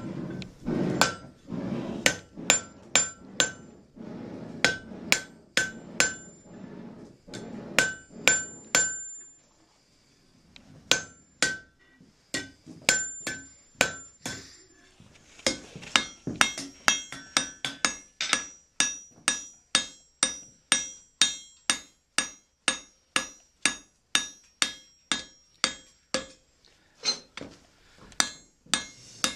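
Blacksmith's hammer striking hot iron on an anvil, each blow ringing. It starts as irregular strikes over a low rumble, pauses briefly about a third of the way in, then settles into a steady run of about two blows a second, forging a rose head nail.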